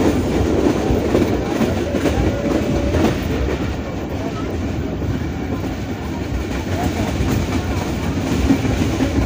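A passenger express train running at speed, heard from an open coach door. There is a steady rumble of wheels on the rails, with scattered clicks from rail joints.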